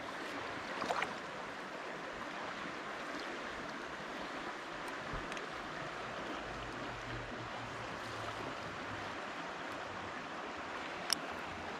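Steady rush of flowing river water, with a few faint clicks about a second in and one sharp click near the end.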